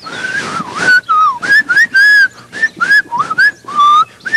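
A person whistling a quick, lively tune of short notes that slide up and down in pitch. The whistling begins after a breathy hiss.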